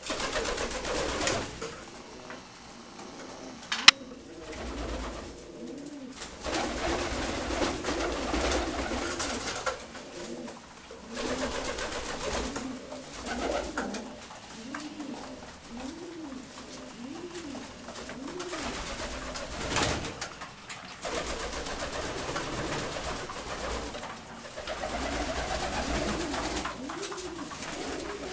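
Domestic Saxon fancy pigeons cooing in a loft, with rising-and-falling coos repeating about once a second. A sharp click sounds about four seconds in, and there are stretches of rustling noise.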